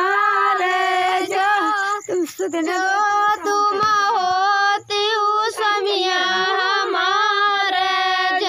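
A high female voice singing a chohkra, a women's wedding folk song, in long held phrases that waver at their ends, with no steady beat behind it.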